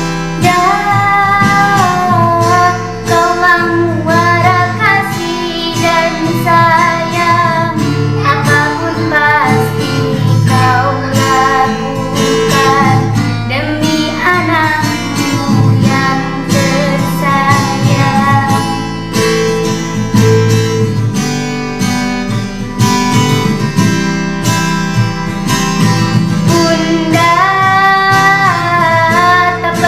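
A child singing a solo song over a karaoke backing track led by acoustic guitar.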